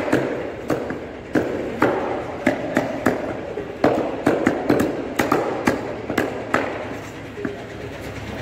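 A butcher's cleaver chopping chicken on a wooden log block: sharp, irregular chops, about two a second, with a gap near the end.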